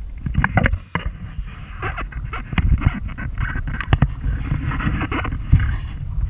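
Safari vehicle rolling slowly along a rough dirt track, heard from inside the cab: a steady low engine and road rumble with frequent knocks and rattles as it jolts.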